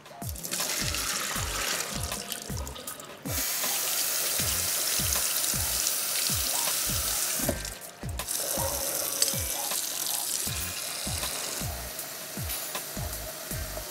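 Kitchen tap water running and splashing onto soaked chickpeas in a mesh strainer and a glass bowl in a stainless steel sink. The flow gets louder about three seconds in and drops out briefly about eight seconds in. Background music with a steady beat runs underneath.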